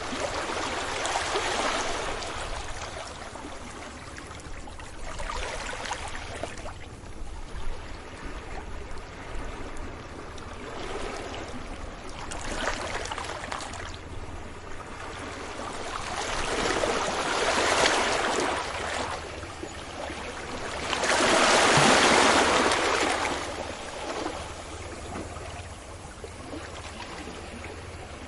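Ocean waves breaking on a beach: slow surges of rushing water, about five of them, the one late on the loudest.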